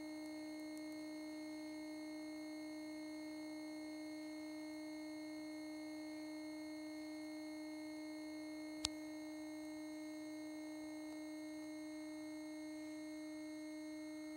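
Faint steady electrical hum from a TV and VCR playing the blank black section at the end of a VHS tape, one low tone with a few fainter steady tones above it. A single sharp click about nine seconds in.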